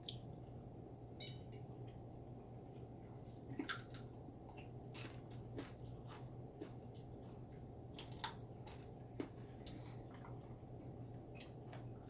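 People chewing and eating at a meal, with scattered soft clicks and taps, the sharpest about four and eight seconds in, over a steady low hum.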